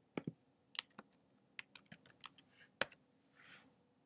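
Typing a password on a computer keyboard: about a dozen quick, uneven keystroke clicks over roughly three seconds, then a faint short hiss near the end.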